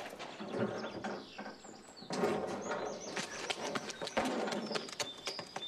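Birds chirping, with a run of quick footsteps and the clop of a horse's hooves.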